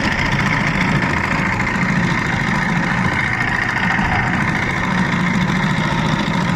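An engine running steadily at an even pace, a constant drone with no change in speed.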